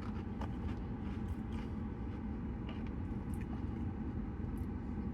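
Faint, irregular crunches of someone biting into and chewing a crispy fried chicken sandwich, over a steady low rumble.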